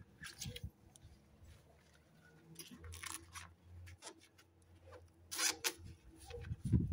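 Sponge in a rubber-gloved hand scrubbing the track of a plastic window frame: scattered short scraping and rubbing strokes, the loudest about five and a half seconds in.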